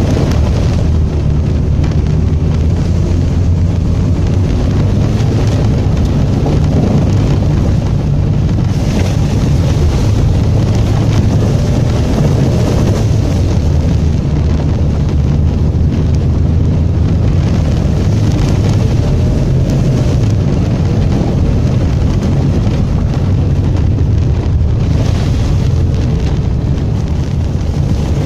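Lada VAZ-2110 car driving across a wet, muddy field: a steady engine and tyre rumble.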